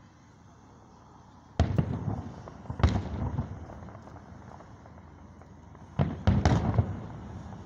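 Fireworks display: aerial shells bursting as sudden booms with echoing rumbles after them, in a cluster starting about one and a half seconds in and a second cluster about six seconds in.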